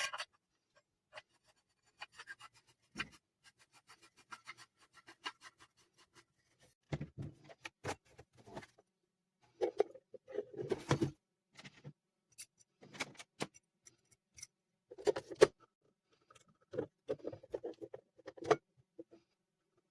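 Irregular clicks, taps and knocks from bird bath parts being handled and fitted together, with a few heavier clusters of knocks from about 7 seconds in.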